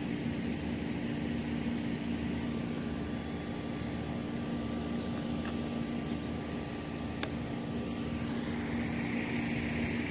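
A steady low machine hum of two close tones, from a motor or fan running somewhere, with a faint click about seven seconds in and a hiss coming up near the end.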